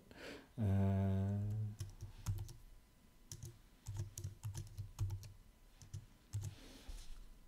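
A man's drawn-out voiced hum about half a second in, then scattered computer-keyboard keystrokes: single key presses entering Emacs key commands.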